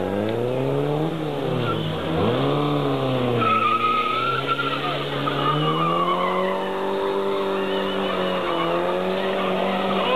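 Car engine revving up and down as the car is manoeuvred, its pitch dropping sharply about two seconds in and then holding steadier in the second half, with tyres squealing for a couple of seconds around the middle.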